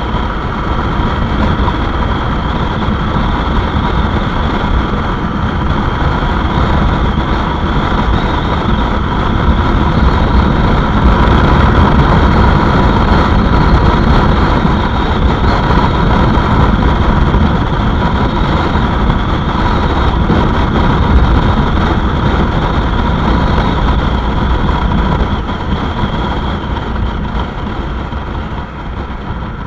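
Motorcycle engine running while riding, mixed with heavy wind rush on the microphone; it grows louder through the middle and eases off near the end.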